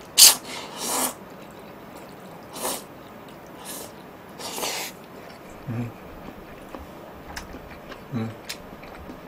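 A man slurping noodles from a bowl in about five quick, noisy slurps, followed by a couple of soft low knocks.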